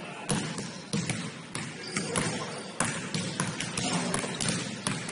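Basketball bouncing on a gym floor as it is dribbled, sharp bounces about every half second to a second.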